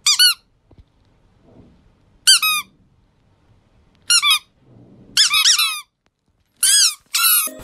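Squeaky plush chick toy squeezed in six short bursts of quick, high, falling peeps, spaced about one to two seconds apart.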